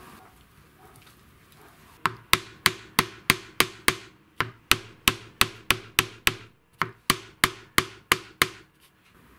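A small hammer tapping on the pins of a knife's wooden handle scales to peen them, about twenty sharp taps at roughly three a second, each with a short metallic ring. The taps come in three runs, separated by brief pauses.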